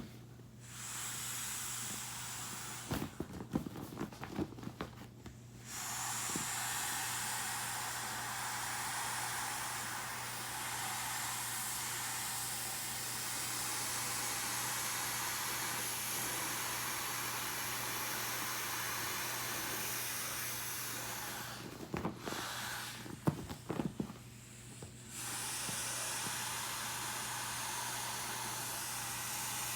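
Air hissing steadily out of an inflatable beach ball's open valve as it is deflated. The hiss breaks off twice for a few seconds of clicks and rustles from handling the ball, then starts again.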